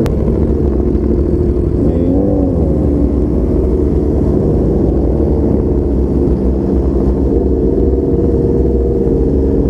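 Motorcycle engine running steadily while riding, with wind rumble on a helmet-mounted camera microphone. About two seconds in, the engine's pitch rises and falls briefly.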